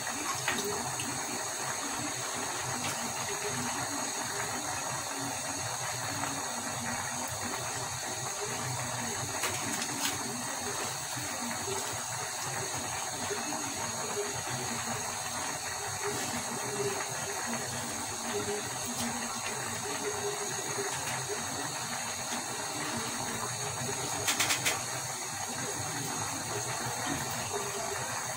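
Steady hiss and sizzle of a karahi of curry cooking on a gas burner, steaming under a heap of raw Malabar spinach (pui shak) leaves, with a few short clicks, the loudest about 24 seconds in.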